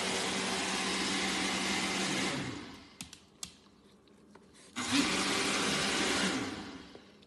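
A motorised appliance running with a steady whirr and hum, winding down about two and a half seconds in. A few faint clicks follow, then it starts again abruptly near five seconds in and winds down again about a second and a half later.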